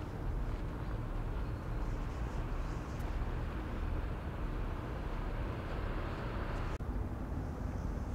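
Steady low rumble of harbour ambience with a faint, even engine-like hum underneath.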